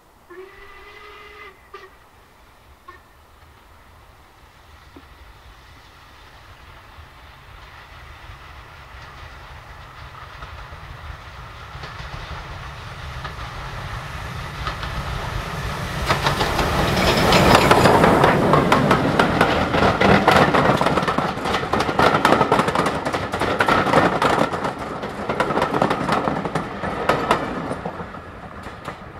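A short whistle from LMS Jubilee class steam locomotive 45596 Bahamas near the start. Then the three-cylinder 4-6-0 approaches with its coaches, growing steadily louder into a rapid clatter of wheels and exhaust as it passes close by, and the sound drops away sharply near the end.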